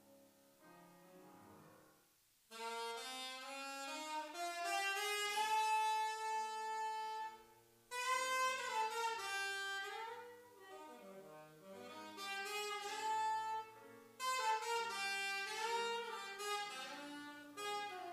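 Alto saxophone playing a slow melody in phrases of held notes, with grand piano accompaniment. After a soft opening and a brief pause, the saxophone comes in about two and a half seconds in, pausing for breath about eight and fourteen seconds in.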